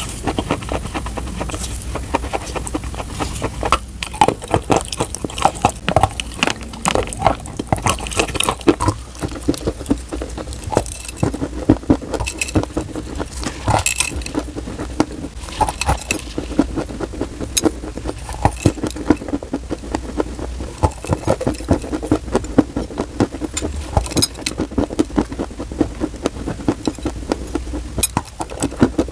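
Biting and chewing hard white chalk-like pieces close to the microphone: irregular sharp crunches and crackles, several a second, over a steady low hum.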